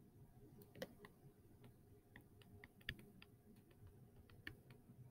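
Faint, irregular light clicks and taps of a stylus on a tablet screen while writing by hand, several a second with gaps, over low room hiss.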